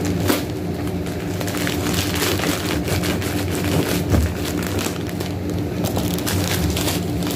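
Plastic poly mailer bag crinkling and rustling as it is handled, over a steady low hum.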